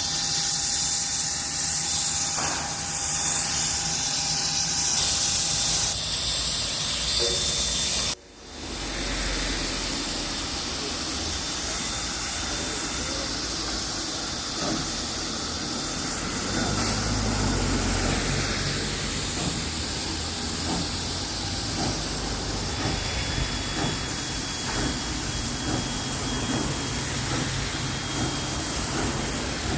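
Steam locomotive 5917, a 59 class 2-8-2, hissing loudly as steam escapes. The hiss breaks off suddenly about eight seconds in, then goes on steadily and a little quieter, with a low rumble joining it about halfway through.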